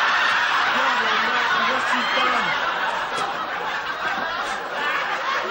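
Studio audience laughing, a long laugh from many people at once.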